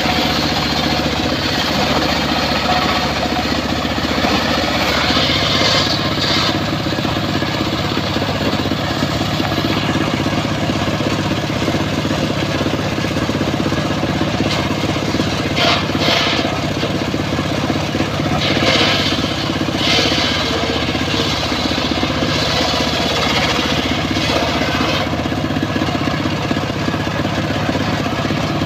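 Circular saw running steadily, its note rising and brightening several times as the blade bites into wood: around five seconds in, again around sixteen and nineteen seconds, and for a longer stretch around twenty-three to twenty-five seconds.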